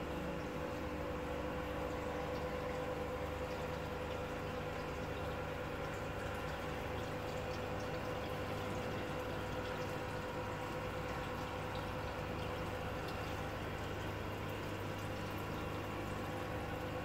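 Aquarium aeration and filter pumps running: a continuous bubbling from the air lines over a steady mechanical hum, unchanging throughout.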